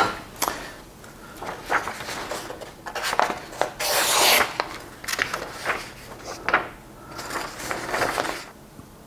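A sheet of paper rustling and being sliced by the edge of a freshly sharpened steel scraper, testing how sharp it is. It comes in two longer rasping bursts, about four seconds in and again near the end, with short clicks and taps of handling between.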